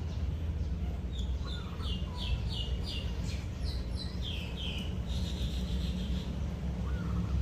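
A bird calling a run of short, high chirps, about two to three a second, over a steady low rumble.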